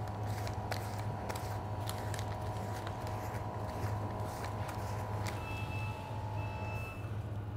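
Metal ice-cream scoop scraping across a box of firm Italian ice, with scattered small clicks and scrapes, over a steady low machine hum.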